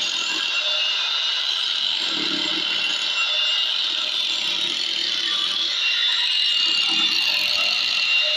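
Angle grinder running steadily under load with a high whine, grinding into a washing machine gearbox housing to cut out a seized bearing.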